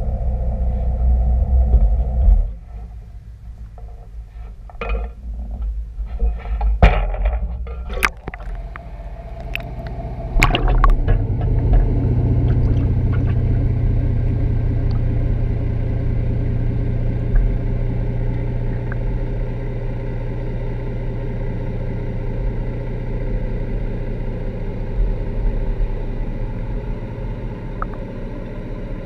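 Knocks and clatter as an underwater camera in its housing is handled and lowered over the side of a boat, then a rush of water about eleven seconds in as it goes under. After that comes a steady low hum: the boat's idling engine heard through the water.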